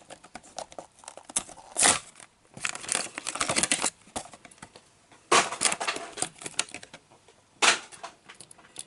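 Plastic blister and cardboard backing card of a diecast car package being pulled and torn open, in several crinkling, tearing spells with short pauses between.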